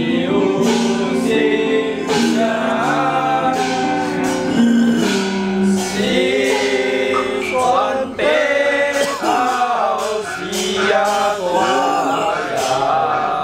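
A male voice singing a slow, gliding melody over held instrumental tones, with a steady percussion beat of sharp strikes.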